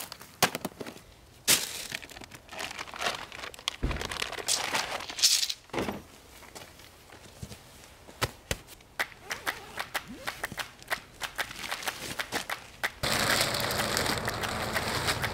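Camping gear being handled on gravel: a plastic storage box set down, then scattered knocks, clicks and rustles as gear is lifted out. Near the end, a large black plastic sheet crinkles loudly and steadily as a wrapped bundle is pulled open.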